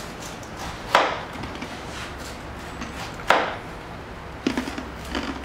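Knife slicing a peeled pineapple into half-inch rings. Each cut ends in a sharp knock of the blade on the cutting board: three knocks, about a second in, past three seconds, and a lighter one near the end.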